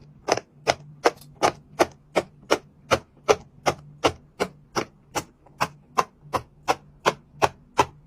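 Silicone pop-it fidget toy bubbles being popped one after another, a steady run of sharp pops about three a second.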